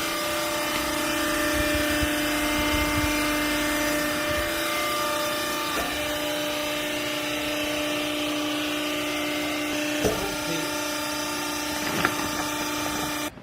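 Wiper compress baler running: a steady machine hum with a whine of several even tones, with a couple of light knocks. It cuts off suddenly near the end.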